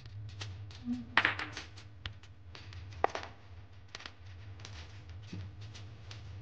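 Small splashes and clicks as a hand drops dried seafood pieces into the water of a ceramic soup pot, the loudest splashing about a second in and a sharp knock about three seconds in, over a steady low hum.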